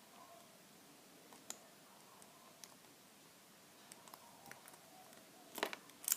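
Lock picking on an all-brass American Lock padlock: faint, scattered small metallic clicks of a pick and tension wrench working the pins, with a louder cluster of clicks near the end.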